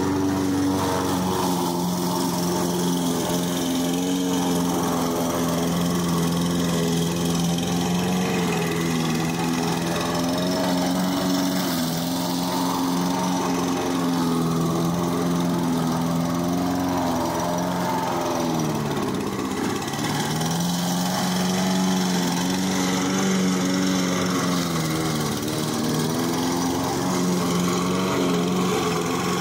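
Small lawn mower engine running under load while cutting high grass, with a steady drone. Its pitch sags and recovers a few times, most deeply about two-thirds of the way through and again near the end, as the engine bogs in the thick grass.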